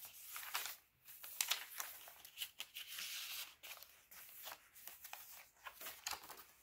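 Paper pages of a thick handmade junk journal being turned and handled by hand: a run of rustles and soft flicks, with a longer rustle about three seconds in.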